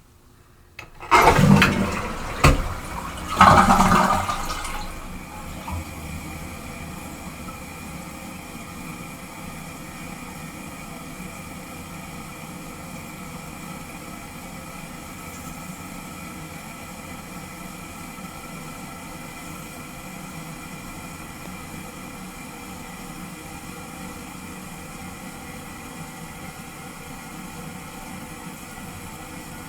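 Toilet flushing: a loud rush of swirling water that surges twice over the first few seconds, with a sharp knock between the surges. The tank then refills with a steady hiss.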